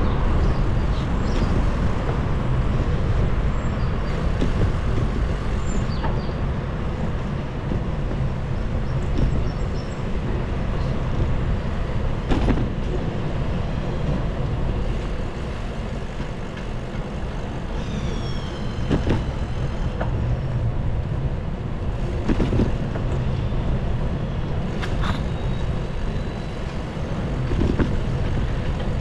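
Riding noise picked up by a bicycle-mounted action camera on a wet road: a steady low rumble of wind and tyres with traffic around, a few short knocks, and a brief high falling squeal about two-thirds of the way through.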